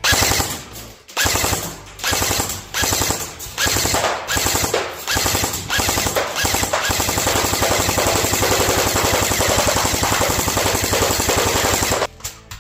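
Specna Arms JA09 AK airsoft electric gun firing on full auto, a rapid popping from its battery-driven gearbox. It fires several short bursts, then one long burst of about five seconds that cuts off near the end.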